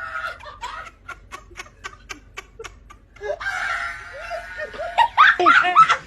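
Laughter: a quick run of short breathy huffs, then louder pitched cackling that builds near the end.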